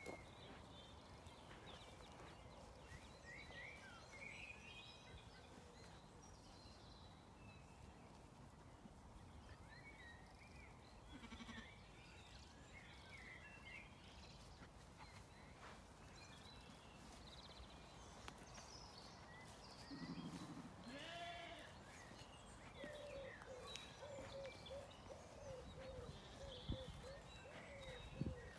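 Zwartbles sheep bleating once, about twenty seconds in, over faint chirping birdsong in a quiet pasture.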